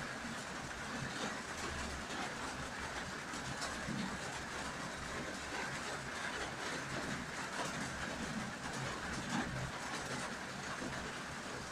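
Steady rain, an even hiss with a low, uneven rumble underneath.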